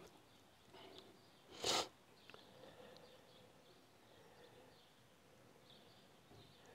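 Water sloshing in a plastic gold pan as black-sand concentrate is swirled, mostly faint, with one brief swish about a second and a half in. Faint bird chirps sound in the background.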